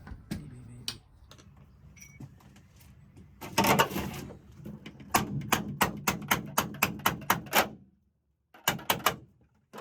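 Hammer tapping on a chisel: a louder clatter about three and a half seconds in, then a quick, even run of sharp strikes about three a second, a short pause, and a few more strikes near the end.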